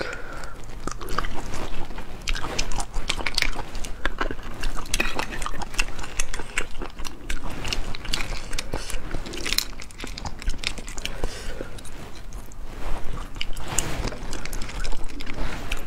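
Close-up eating sounds of spicy stir-fried sea snails: sucking and biting the meat from the shells, chewing, and snail shells clicking as fingers pick through them on the plate.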